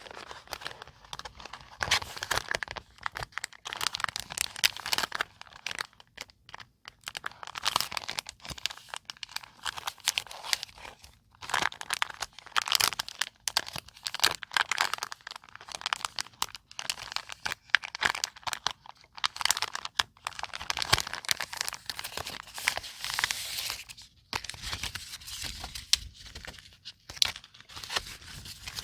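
Paper being handled close up for scrapbooking: irregular rustling, crinkling and tearing, broken by small sharp clicks and taps.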